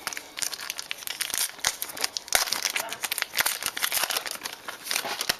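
Trading-card pack wrapper being torn open and crinkled by hand: a run of irregular crackling and rustling.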